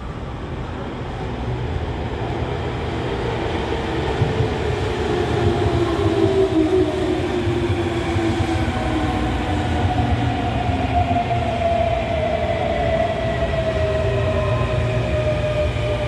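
Toei 6300-series electric commuter train running, heard from inside the car: a steady running rumble with whining motor tones that slowly fall in pitch.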